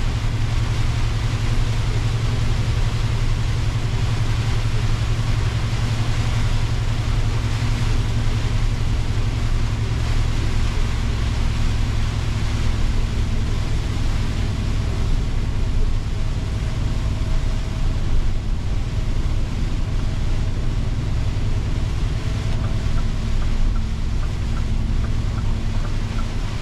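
Inside a Scania truck's cab: the diesel engine's steady low drone under the constant hiss of tyres on a rain-soaked road.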